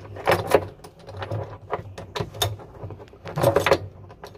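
Irregular metallic clicks, clinks and knocks of hand tools being worked on a washing machine, likely a three-jaw puller being set on the drum shaft, with a busier cluster of clatter near the end.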